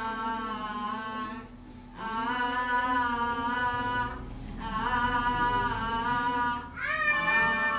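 A voice singing a slow melody in long held notes, with short breaks between phrases about one and a half and four seconds in, and a new, higher phrase near the end.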